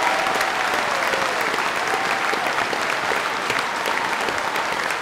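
A large hall audience applauding steadily: many hands clapping in a dense, even wash.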